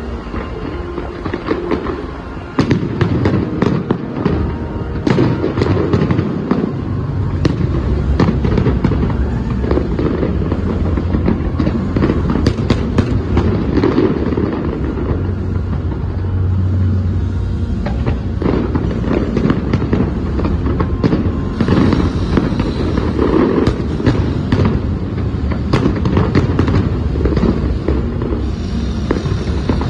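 Fireworks display: a dense, irregular barrage of bangs and crackling from aerial shells bursting, growing louder about two and a half seconds in.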